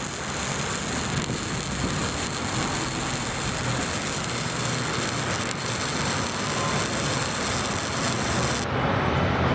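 Wire-feed welder arc crackling and sizzling steadily while welding steel tubing. The arc stops shortly before the end.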